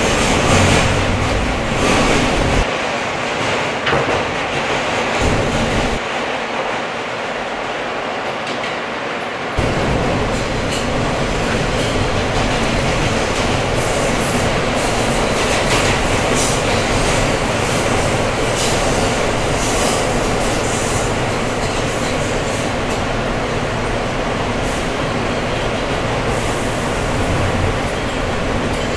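New York City Subway E train running through a tunnel, heard from inside the car: a steady loud rumble and rattle of the wheels on the track. About ten seconds in, the low rumble suddenly gets louder.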